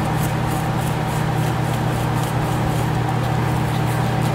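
Small whisk stirring a dry powder mix of buttermilk powder and salts in a plastic tub, with light scratchy strokes several times a second over a steady low hum.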